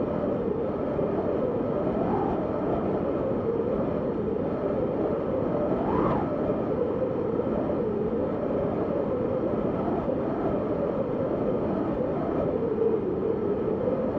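Blizzard wind blowing steadily with a wavering, whistling howl, and one gust that rises in pitch about six seconds in.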